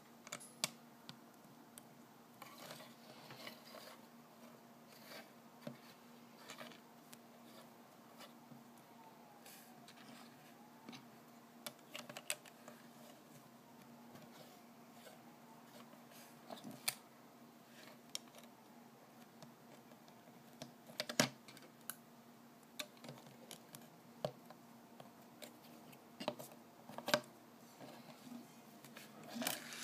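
Plastic LEGO pieces being handled and moved on a wooden tabletop: faint, irregular light clicks and scrapes, with a few sharper clicks in the second half.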